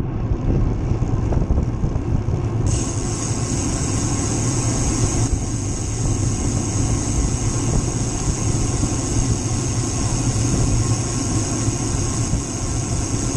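Steady rumble of wind on a GoPro microphone with road noise while riding a bicycle; a high hiss joins about three seconds in.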